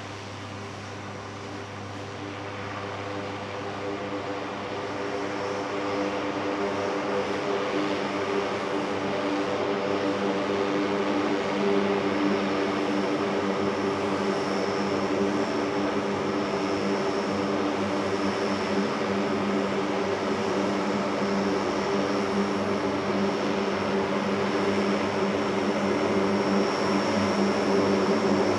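Lockheed C-130J Super Hercules turboprop engines and propellers running as the aircraft taxis, growing steadily louder over the first several seconds as it comes closer. A steady high whine joins about halfway through.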